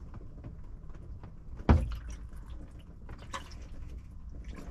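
Water poured over the car roof and sunroof glass, heard from inside the cabin, with splashes and drips and a thump just under two seconds in. The water is a leak test of the newly fitted sunroof glass.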